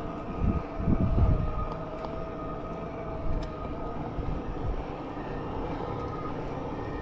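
Fat-tire e-bike on the move: a steady electric-motor whine over wind rumbling on the microphone, with stronger gusts in the first second or so. The whine fades out in the second half.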